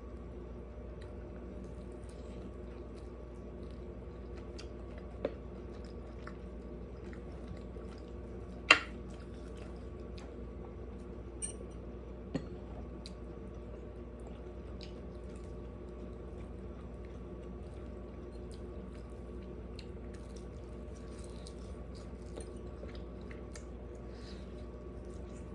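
A person chewing food close to the microphone: faint wet chewing and mouth ticks over a steady electrical hum. Four sharp clicks break in, the loudest and brightest about nine seconds in.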